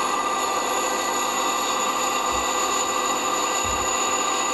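Metal lathe running with a workpiece spinning in its chuck: a steady mechanical whine made of several fixed high tones over a noisy hum.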